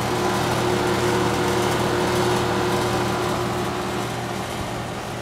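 2009 Carrier Comfort 13 four-ton central air-conditioner condensing unit running, its Copeland scroll compressor and condenser fan giving a steady hum with a constant low tone over an even rush of air. It eases off slightly near the end.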